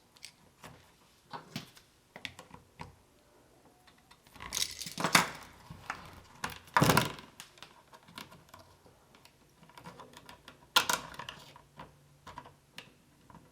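Electrical wire and wire strippers being handled while the insulation is stripped from the wire ends: scattered small clicks and taps, with three louder short rasps about 5, 7 and 11 seconds in.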